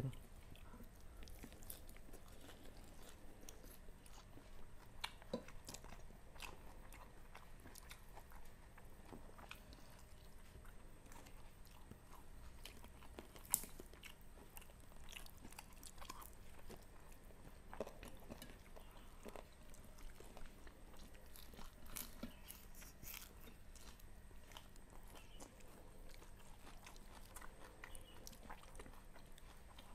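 Faint, close-miked eating sounds of people eating rice, stir-fried chicken liver and chicken feet, and raw greens with their hands: chewing with scattered small crunches and clicks, one sharper click about halfway through.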